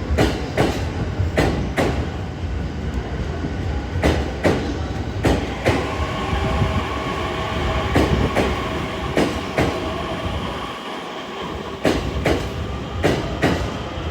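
JR East E231 series 1000-number electric train running into a station platform. Its wheels clack over the rail joints in pairs, bogie after bogie. A steady whine from the train's traction equipment or brakes joins about six seconds in.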